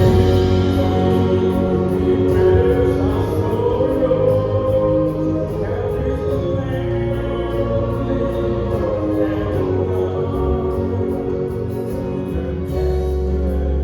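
Choir singing a slow piece with instrumental accompaniment, the voices holding long notes over a regular high ticking pulse. A low bass note comes in near the end.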